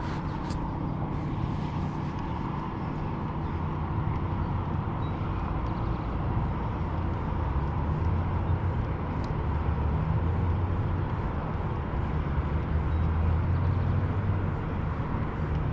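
A steady low motor hum, running with a faint high tone over a noisy rush, growing a little louder about halfway through.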